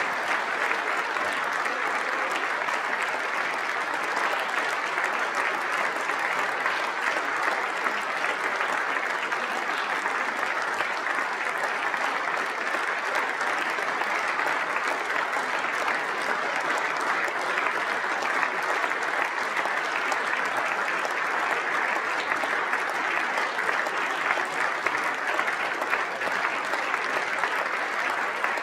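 Large audience applauding steadily, dense clapping with no break.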